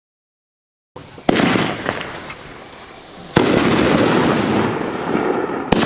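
Consumer firework cake with 1.2-inch tubes firing: starting about a second in, three sharp shots roughly two seconds apart, each followed by crackling.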